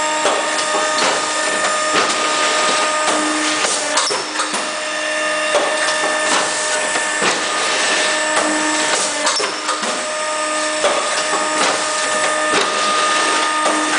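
Cake-box labelling machine running: a steady motor hum with a sharp clack about every one and a half to two seconds as it cycles.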